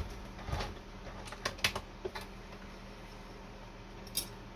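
A few light, scattered clicks and taps as the Kenmore sewing machine and fabric are handled after the stitching stops; the machine is not running.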